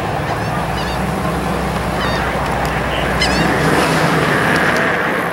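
Classic AMC Javelin's engine running at a slow crawl as the car rolls toward the listener, a steady low rumble that grows a little louder near the end, with short high bird chirps over it.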